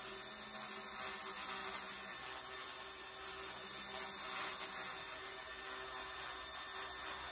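Belt grinder running a scalloped sanding belt, with the wooden knife handle and its brass bolster pressed against the belt twice, about two seconds each, to round off the edges; after about five seconds the grinder runs on alone with a steady hum.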